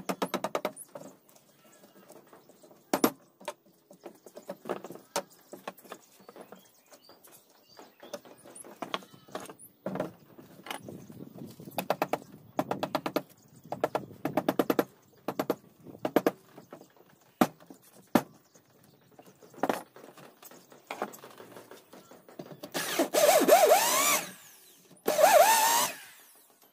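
A hammer strikes a wood chisel cut into a wooden door frame, in quick runs of sharp taps. Near the end an electric hand drill runs twice briefly, whining up to speed.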